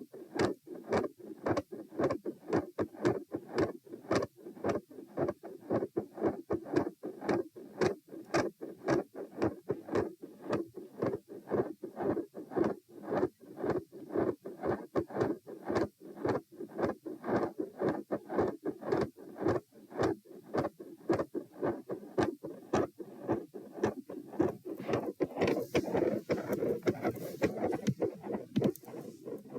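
Heartbeat heard through a stethoscope at the mitral (M) position: quick, regular lub-dub pairs at about 108 beats a minute, with the split second sound and mid-systolic murmur that the recording is made to show. Near the end a scraping rustle of the chest piece moving on the skin or clothing runs over the beats.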